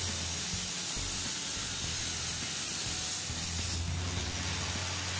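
Table-mounted circular saw running and ripping a board lengthwise, a steady hissing whine over a low motor hum; the high hiss eases a little about four seconds in as the cut finishes.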